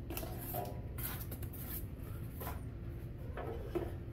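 Handling noises as a cardboard packing insert is pulled from an indoor grill's body and its metal drip tray is lifted out: a few soft knocks, scrapes and cardboard rustles over a low steady hum.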